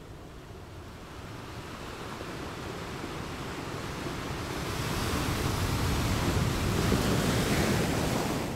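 A rushing, surf-like noise that swells steadily louder over several seconds and eases slightly near the end.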